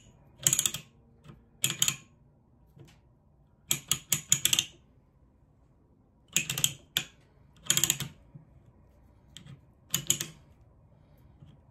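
A ratcheting pipe threader's die head being turned by hand to back it off freshly cut pipe threads. It gives short bursts of rapid metal clicking, about six, with quiet gaps between.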